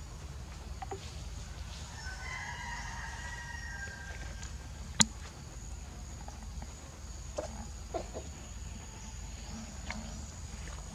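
A rooster crowing once, a drawn-out call lasting about two and a half seconds starting about two seconds in, over a steady high insect drone. A single sharp click about five seconds in is the loudest sound, with a few fainter clicks later.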